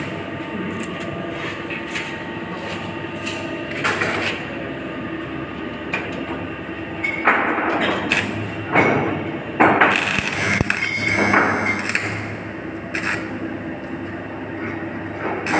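Electric arc welding: a steady hum from the welding machine, with the arc crackling and sputtering in irregular spells through the middle.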